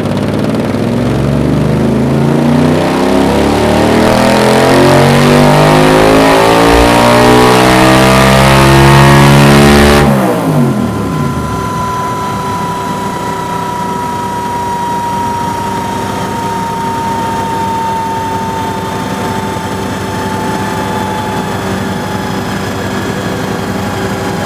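Yamaha TDM 850 parallel-twin engine with a Dominator aftermarket exhaust silencer making a full-throttle dyno pull: the exhaust note climbs steadily in pitch for about ten seconds, then the throttle is shut and the revs drop suddenly. It keeps running after that, with a thin whine that slowly falls in pitch.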